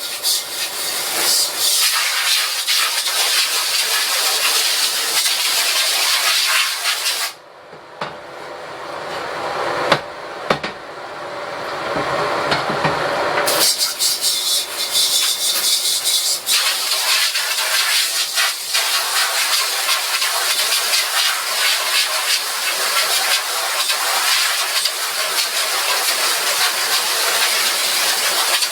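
Portable spray washer jetting water against a screen-printing screen, a steady hiss. About seven seconds in the hiss drops away for about six seconds, leaving a duller, quieter sound with one sharp click, then the spray starts again.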